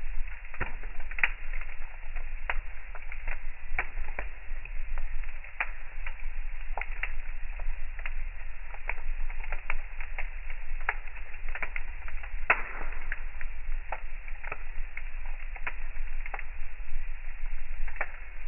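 Fire crackling: irregular sharp pops and snaps over a low, steady rumble.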